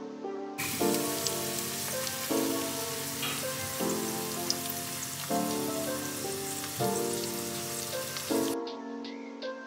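A steady hiss from food cooking on the hob, under soft piano background music. The hiss comes in about half a second in and cuts off suddenly near the end, while the music carries on.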